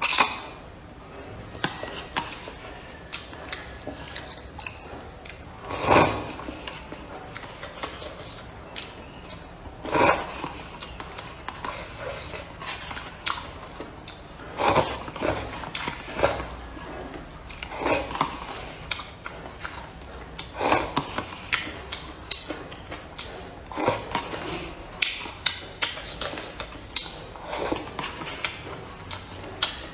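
Close-up eating sounds: hot and sour glass noodles being slurped from a paper cup every few seconds, with chewing and many small clicks of wooden chopsticks against the cup in between.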